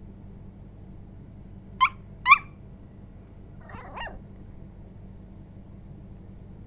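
Cocker spaniel puppy giving two short, high-pitched yips about half a second apart, then a fainter, rougher whimper a couple of seconds later.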